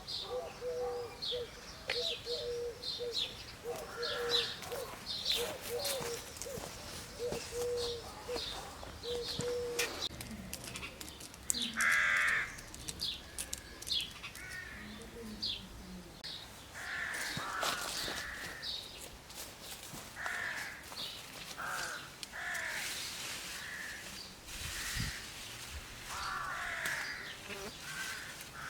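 Birds calling: crows cawing repeatedly through the second half, over steady short high chirps from small birds, with a repeated low note through the first third. Sharp clicks are scattered throughout.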